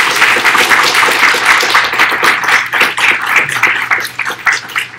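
Audience applauding: dense clapping that begins to thin out into separate claps near the end.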